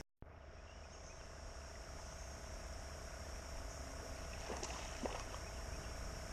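Steady outdoor creek ambience: a low wash of background noise with a high, even insect drone, and a couple of faint clicks about four and a half and five seconds in. The sound comes in after a brief dropout at the start.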